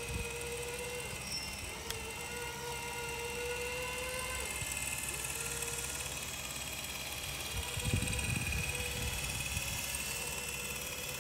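Whine of a radio-controlled model's electric motor and gearbox, running in spurts that stop and start every few seconds. A short low rumble comes about eight seconds in.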